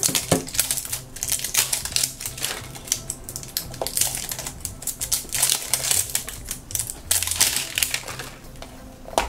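Plastic blind-box pod being handled and opened: thin plastic wrap crinkling and the hard plastic shell clicking and rattling in quick, irregular taps.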